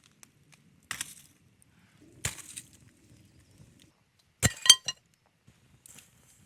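Two soft knocks, then about four and a half seconds in a sharp double clink of hard objects with a brief ringing tone.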